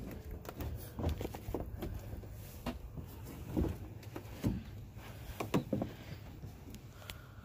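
Scattered soft knocks and rustles from a phone being handled while its holder moves around the snowmobile, over a low rumble. The knocks are loudest about three and a half, four and a half and five and a half seconds in.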